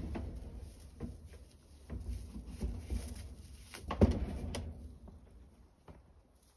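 A few light knocks and bumps indoors, with one sharper knock about four seconds in, over a low rumble that fades out afterwards.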